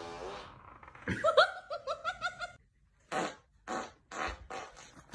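A drawn-out fart trails off at the start, then a person laughs: a run of high-pitched giggles followed by breathy bursts of laughter.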